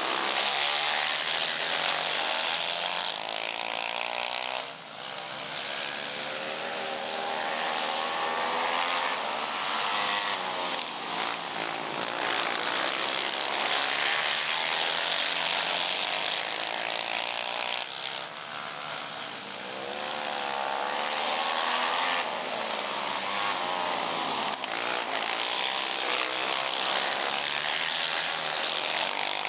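Several racing ATV engines running hard at high revs, their pitch rising and falling again and again as they accelerate and back off, with the sound briefly dropping away twice.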